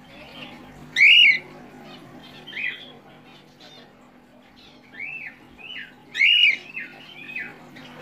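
Cockatiel calling: a series of short, arched squawking chirps, the two loudest about a second in and about six seconds in, with several softer ones between.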